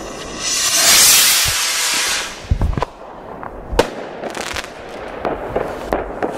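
Weco White Devil firework rocket launching with a loud hissing whoosh that lasts about two seconds, followed by sharp firework bangs: a cluster of cracks about two and a half seconds in and one more about a second later.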